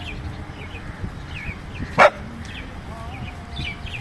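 A dog barks once, short and loud, about halfway through, with faint high chirps around it.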